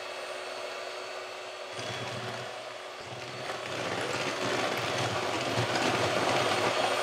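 Bosch electric hand mixer running, its twin wire beaters whisking thin cake batter in a bowl. The whirring grows louder about two seconds in and again from about four seconds.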